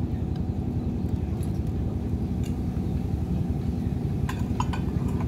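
A steady low engine hum, with a few light clicks a little over four seconds in.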